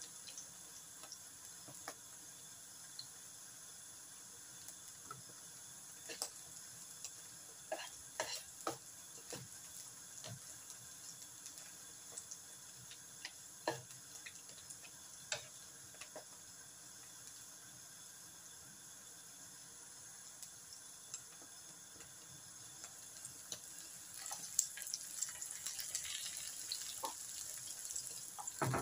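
Sliced bitter gourd sizzling in hot oil in a wok, with scattered clicks and scrapes of a slotted spoon against the pan as the slices are stirred and lifted out. The sizzle grows louder near the end.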